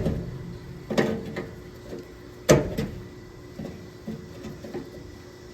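Vampliers screw extraction pliers slipping off a fastener head: sharp metallic snaps about a second in and about two and a half seconds in, with several lighter clicks between, as the jaws fail to bite.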